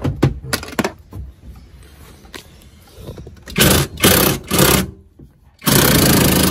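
Handheld power driver spinning screws out: a few light clicks and rattles first, then three short runs about three and a half seconds in, and a longer steady run near the end.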